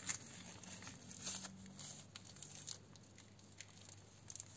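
Clear plastic bags filled with soil crinkling and rustling as they are handled, in faint irregular crackles.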